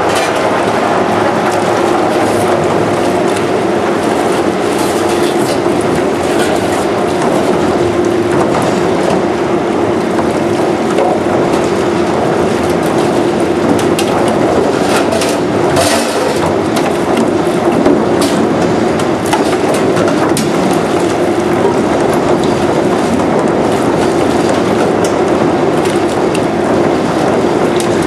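Power Soak pot and pan washer running: its jets churn the soapy wash water in a loud, steady rush over a steady hum. A few sharp clanks of metal pans going into the tank come around the middle.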